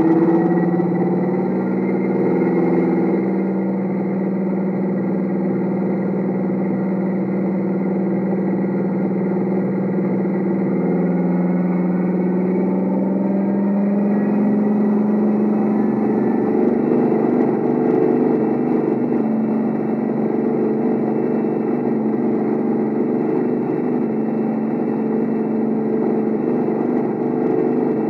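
Recorded Class 55 Deltic engine sound played through an O gauge model locomotive's onboard speaker, running up: a steady engine note that rises gradually in pitch about twelve seconds in, then holds at a higher, fuller note.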